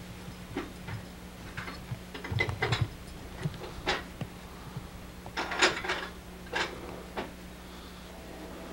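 Scattered clicks, knocks and clattering at an irregular pace, thickest about a third of the way in and again past the middle, over a steady low hum.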